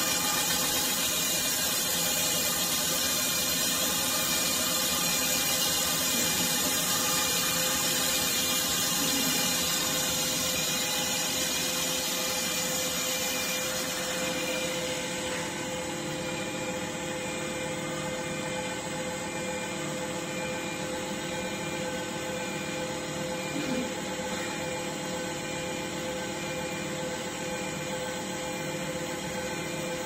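CK6160Q CNC wheel-repair lathe running, its spindle turning an alloy wheel while the turret tool machines it: a steady mechanical hum and hiss with a steady tone. The high hiss drops and it gets a little quieter about halfway through.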